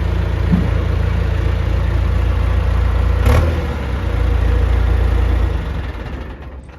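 John Deere 310SE backhoe loader's turbo diesel engine running hard at high revs, with a single sharp knock or clank about three seconds in. The engine sound drops away near the end as the revs come down.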